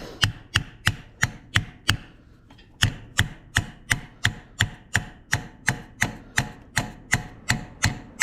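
Hammer blows on a screwdriver driving a cylinder sleeve out of a Ford 8N tractor's engine block: sharp, ringing metal strikes at a steady pace of about three a second, with one short break about two seconds in.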